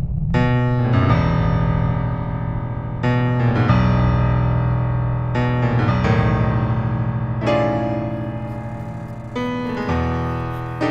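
Piano music: slow chords struck about every two seconds, each left to ring and fade before the next.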